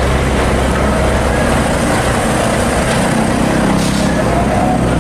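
Truck engine running steadily: a low engine hum under a thick hiss, even in level throughout.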